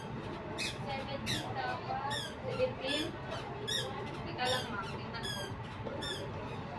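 Repeated short, high-pitched chirps, roughly two a second, over faint background voices and a low hum.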